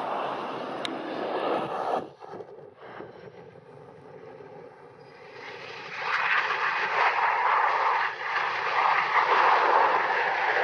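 Jet airliner engine noise, a loud rush that cuts off abruptly about two seconds in. After a quieter stretch, engine noise builds again to a loud rush from about six seconds in.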